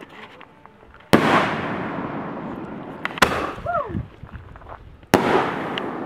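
Fireworks going off: a loud bang about a second in, a smaller one near three seconds and another loud one about five seconds in, each trailing off in a long rolling echo.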